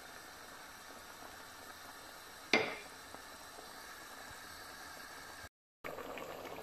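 Pot of chana dal boiling, a faint steady bubbling, with one sharp knock about two and a half seconds in. The sound cuts out for a moment near the end.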